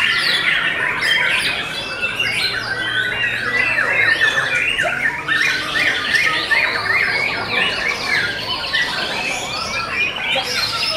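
White-rumped shamas singing in a dense, loud chorus of overlapping whistles, quick sweeps and rapid trills, with several birds going at once.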